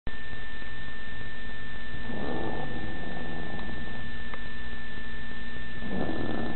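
A woman snoring, two snores about four seconds apart, over a steady hum and hiss with a thin high-pitched whine.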